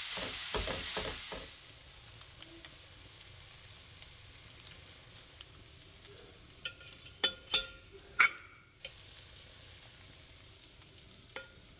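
Raw ground beef sizzling in a hot stainless steel frying pan while being stirred with a wooden spatula, dying down about a second and a half in. Later, a few sharp clinks and scrapes as a metal spoon scoops browned beef out of the pan into the slow cooker crock.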